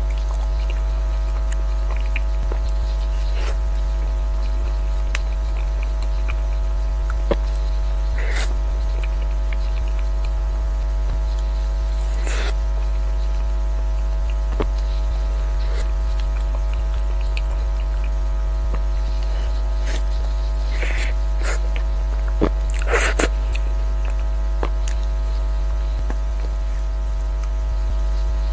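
Loud steady electrical hum, a low drone with several constant higher tones over it. A few soft clicks and mouth smacks come from eating a soft mousse cake with a fork, scattered through it, with a small cluster about three-quarters of the way in.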